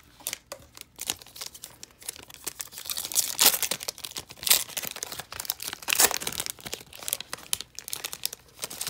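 A Panini Contenders football card pack's wrapper being torn open and crinkled by hand: a dense run of crackles and rips, with several louder tears in the middle.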